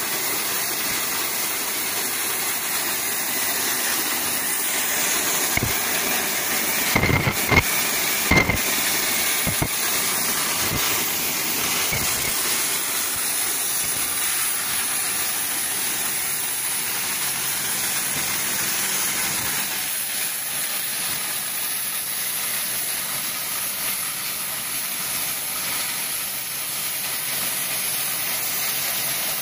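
Oxy-fuel cutting torches on a gantry CNC flame cutting machine hissing steadily as they cut through steel plate. A few sharp knocks come between about six and ten seconds in.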